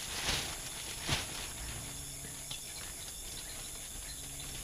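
Night insects chirring steadily, with two short rustling knocks in the first second and a fainter one later, as firewood and paper are handled to light a wood stove.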